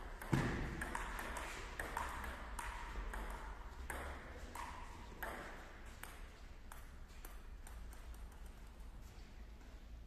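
Table tennis ball clicking back and forth off paddles and the table in a rally, a sharp knock about every half second with a short ringing echo; the hits grow sparser and fainter after about five seconds.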